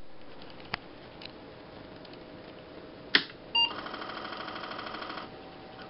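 An Apple II computer being switched on: a sharp click about three seconds in, then the short startup beep, then about a second and a half of rhythmic buzzing chatter from the floppy disk drive as it starts to boot, which stops suddenly.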